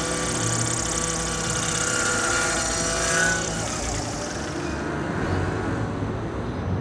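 Small engine of a miniature RC helicopter running at high revs with a high-pitched whine. The revs climb briefly, then drop off about three and a half seconds in.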